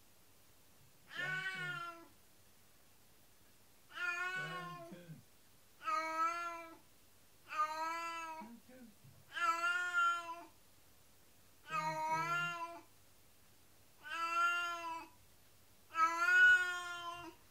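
A domestic cat meowing over and over, one long meow about every two seconds, eight in all.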